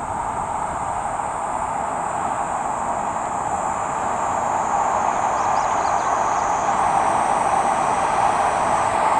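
Hokkaido Shinkansen H5-series train approaching from inside the Seikan Tunnel: a steady rushing rumble that grows gradually louder, with a thin high steady tone above it.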